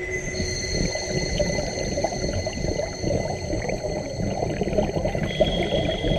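Scuba diving heard underwater: a dense crackling and gurgling of regulator exhaust bubbles, with several thin steady high whines at different pitches, one coming in about half a second in and another after about five seconds.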